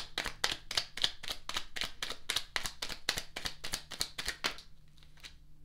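Tarot deck being shuffled by hand, the cards slapping together in a quick, even rhythm of about five slaps a second that stops about four and a half seconds in.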